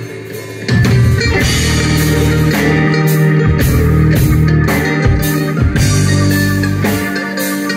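Live rock band playing an instrumental passage: electric guitar, mandolin, electric bass and drum kit. After a brief drop in the first second, the full band comes back in with steady drum hits.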